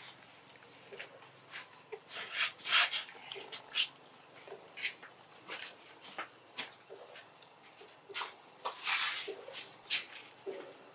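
A newborn macaque and its mother making irregular short squeaks and clicks, with two louder flurries about two and a half and nine seconds in.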